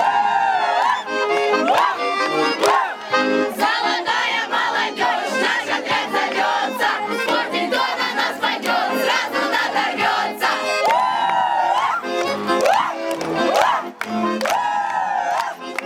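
A group of children shouting and chanting together over a loud backing music track with a steady beat.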